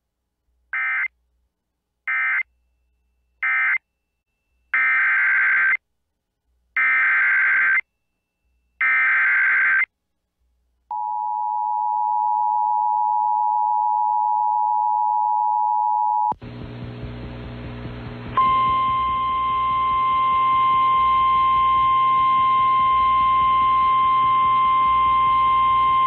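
Emergency Alert System data tones: three short end-of-message bursts closing the previous warning, then three longer SAME header bursts, then the EAS two-tone attention signal, held for about five seconds. A low hum from the NOAA Weather Radio feed follows, and about two seconds later the weather radio's 1050 Hz warning alarm tone starts and holds steady, announcing a new severe thunderstorm warning.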